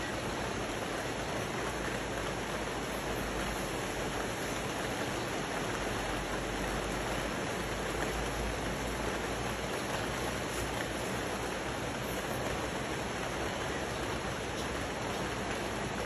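Steady rain falling on dense rainforest foliage, blended with the rush of a rocky river below, one even wash of water sound without breaks.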